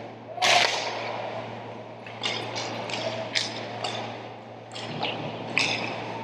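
Ice hockey play: skates scraping on the ice and sticks clacking against the puck and each other, a string of sharp scrapes and clacks with the loudest about half a second in, over a steady rink hum.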